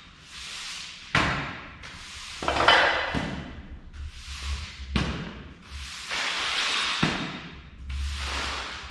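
Broom strokes on a shop floor: a series of hissing sweeps, each starting with a knock and fading over a second or two, about every two seconds.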